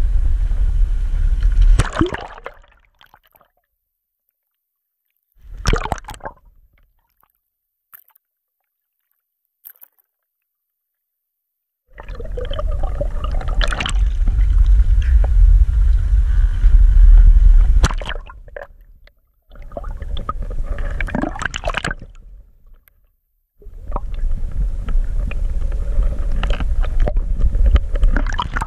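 Sea water sloshing and gurgling around an action camera's waterproof housing as it is moved underwater, with a heavy low rumble. The sound drops out completely twice in the first twelve seconds, with one short burst between, then runs in rough stretches.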